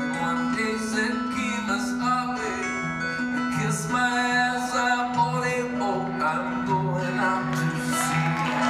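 Two acoustic guitars playing a slow country-folk song, with a voice singing over them.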